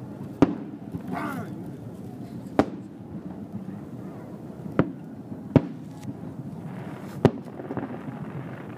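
Aerial fireworks shells bursting: five sharp bangs at uneven intervals, over a steady murmur of a crowd.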